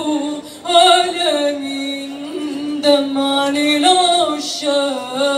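A woman singing solo into a hand-held microphone, in long held notes with sliding ornaments and short breaks between phrases.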